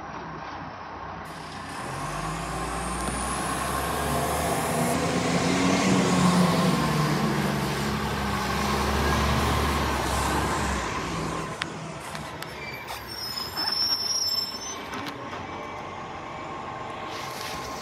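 Garbage truck's diesel engine revving up as the truck pulls away and drives past, loudest about six seconds in, then dying down as it moves off. A few brief knocks and a hiss follow near the end.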